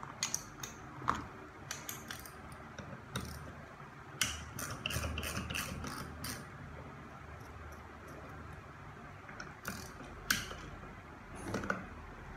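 Hand ratchet clicking in short runs, with scattered sharp metal clicks, as bolts are turned out of a Mercedes 722.6 transmission valve body. The densest run of clicking comes about four to six seconds in.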